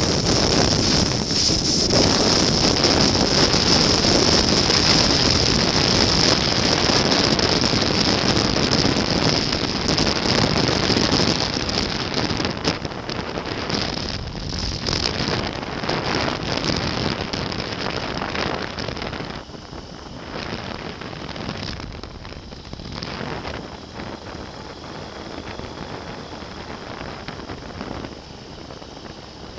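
Quantum 912 flexwing microlight trike rolling out over a grass airstrip after landing: rushing wind on the microphone and rumble from the wheels and airframe. The noise is loud at first and dies down steadily over the last third as the trike slows.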